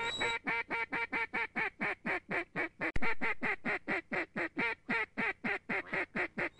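A long run of quick, evenly spaced duck quacks, about five a second, each one falling in pitch.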